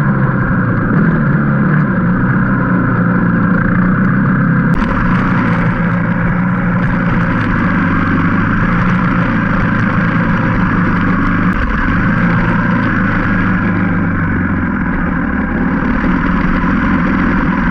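Dirt bike engine running under way on a dirt trail, a steady engine note that shifts in pitch a few times as the throttle changes.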